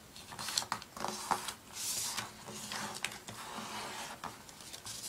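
A sheet of paper being folded and creased by hand: fingers pressing and rubbing along the fold, giving soft rustles and small taps, with a longer sliding rustle about two seconds in.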